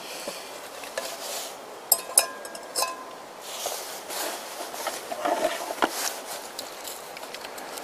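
Stainless steel cooking pot set down on the pot supports of a small gas canister stove: a few sharp metallic clinks with a brief ring about two seconds in, followed by quieter handling knocks.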